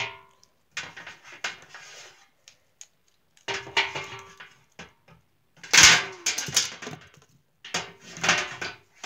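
Plastic wrestling action figures thrown and slammed against a table and a plastic toy ladder, in a series of clattering bursts with a sharp loud hit about six seconds in.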